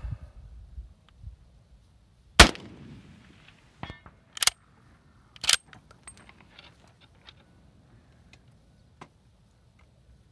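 Wind buffets the microphone at first. About two and a half seconds in, a single shot from a Swiss K31 rifle firing GP11 7.5×55 mm surplus ammunition cracks out, with a short echo trailing after it. Over the next three seconds come a few sharp metallic clacks.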